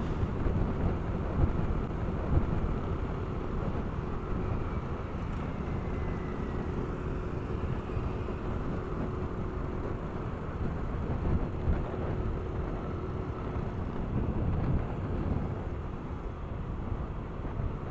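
Motorcycle under way in traffic, heard from the rider's action camera: a steady low rush of wind on the microphone mixed with engine and road noise, and a faint steady tone that comes and goes.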